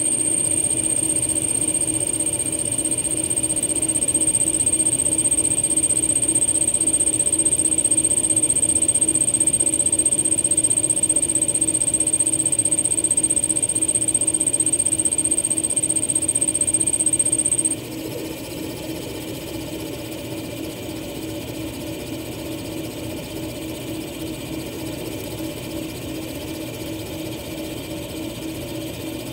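Small-hole EDM drilling machine burning through stainless steel with a fine tube electrode: a steady high-pitched whine from the spark machining over the machine's steady hum. The whine cuts off suddenly about two-thirds of the way through, leaving only the hum.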